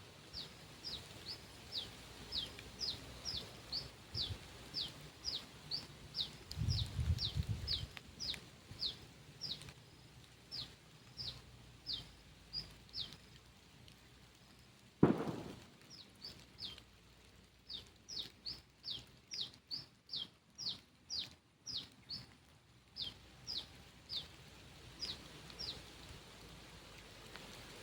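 A bird calling a long run of short, high chirps, each one sliding downward in pitch, about two a second, with a pause near the middle. A single sharp thump about halfway through, and low rumbles of wind or handling on the microphone near the start.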